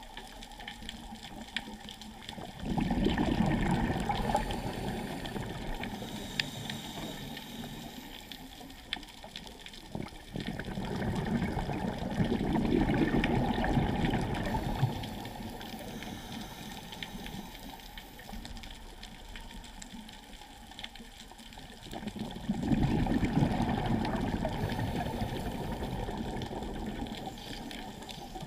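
Scuba diver's regulator exhalations heard underwater: three long rushes of bubbles, each starting suddenly and fading away over several seconds, with quieter gaps between them.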